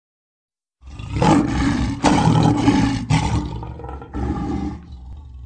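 Lion roar sound effect: a drawn-out roar in several pulses, beginning about a second in and fading away near the end.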